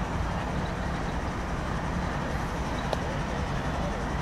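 Steady low rumble of a train.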